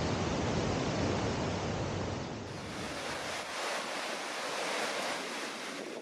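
Waterfall and rocky river rapids rushing steadily, a dense noise with a deep rumble underneath. About two and a half seconds in, the sound cuts to a thinner, hissier rush of falling water as the rumble drops out.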